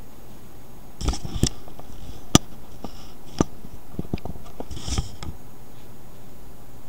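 Handling noise close to the microphone: a scatter of short clicks, taps and rustles, the sharpest a single crack about two and a half seconds in, with little between them after about five seconds.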